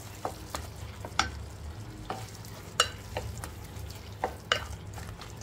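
Wooden spatula stirring minced meat frying in a metal pot, knocking and scraping against the pot's sides at irregular intervals, about every half second to a second, over a low steady hum.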